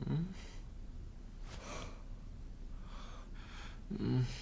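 A man breathing hard and gasping, with short low voiced grunts at the start and again about four seconds in, and breathy exhales between them.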